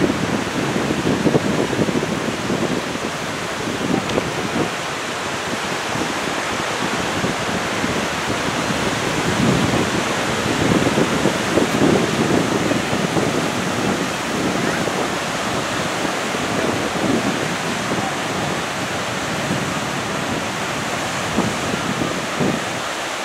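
Sea surf washing onto a sandy beach, a steady rush, with irregular gusts of wind buffeting the microphone.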